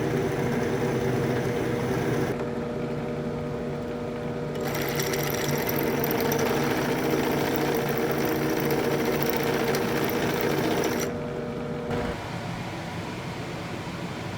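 A small electric motor, like a hand power tool's, running steadily with a constant pitch, its hiss changing a couple of times, then dropping away about eleven seconds in.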